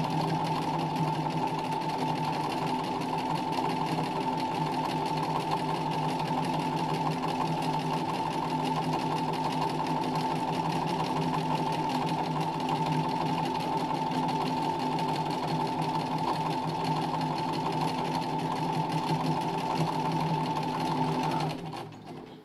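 Domestic sewing machine stitching free-motion embroidery, the motor running at a steady speed with a constant whine and the needle stitching rapidly; it winds down and stops near the end.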